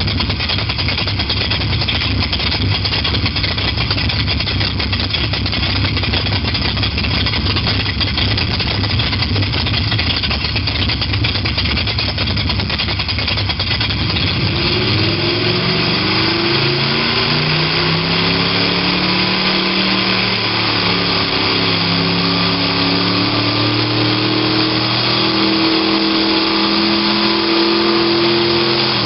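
Simulated sports-car engine sound from the XLR8 iPhone app, played loud over a Toyota Prius's car stereo and heard inside the cabin. It holds a low, steady rumble for about the first half, then the pitch climbs and drops back several times as the app mimics a car accelerating and shifting up through gears.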